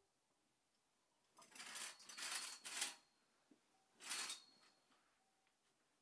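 A curtain pulled open along its rail, in two pulls: a sliding, scraping sound lasting about a second and a half, then a shorter one a second later.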